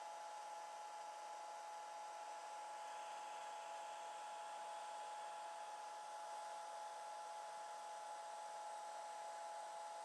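Handheld hair dryer running steadily on a watercolor painting, drying the wet paint: a quiet, even whine of a few steady tones over a rush of air.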